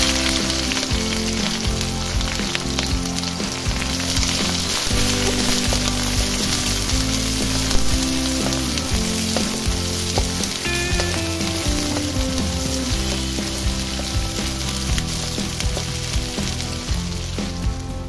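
Sliced onions sizzling steadily in hot oil in a wok, with occasional scrapes of the spatula as they are stirred. Background music plays low underneath.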